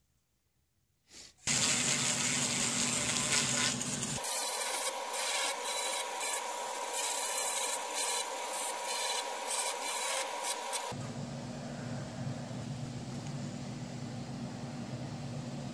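Power carving tools grinding wood with carbide burrs, in cut-together segments. After a quiet start there is a rasping grind over a motor hum. From about four seconds in, a small grinder with a Kutzall burr whines steadily as it cuts. Near the end comes the lower hum and grind of a Mastercarver flexshaft tool.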